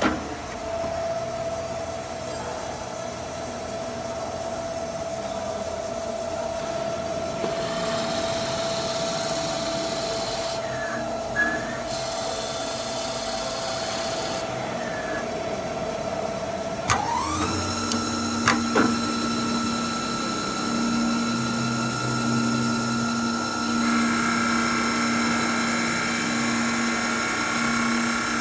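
CNC wood lathe running with a steady motor whine while a drill bit bores into the spinning wooden blank from about eight seconds in. About two-thirds of the way the whine glides up to a higher pitch, with a few sharp clicks as the tool turret changes tools. A turning tool then cuts the outside of the blank.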